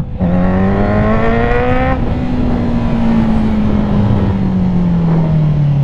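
Honda CB650R inline-four engine running through a full titanium aftermarket exhaust, revving: the revs climb for about two seconds, then fall away slowly.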